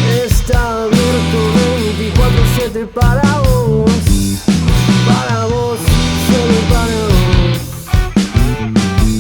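Rock band playing: drums, bass and distorted electric guitars, with a lead melody line that bends and slides in pitch above the chords.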